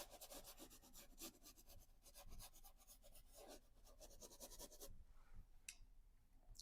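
Faint scratchy rubbing of oil paint being worked onto a canvas in quick repeated strokes, stopping about five seconds in, with one last faint stroke a moment later.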